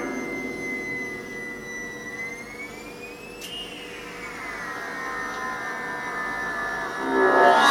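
Homemade 555-timer polyphonic keyboard synth run through a filter with LFO modulation and echo: a sustained electronic drone whose high tone glides slowly up and then back down, over a steady lower tone. A louder cluster of notes comes in near the end.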